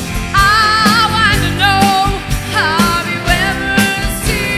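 A live rock band playing: drum kit, electric guitar and bass, with a lead melody that bends and wavers in pitch over the steady beat.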